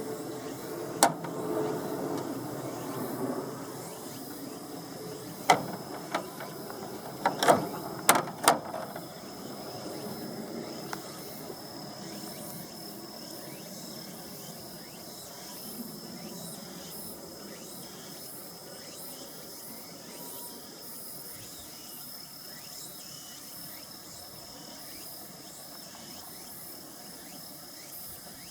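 Electric fan heater running with a steady hiss of moving air and a faint, steady high whine. A handful of sharp clicks come in the first nine seconds, after which the running noise settles lower.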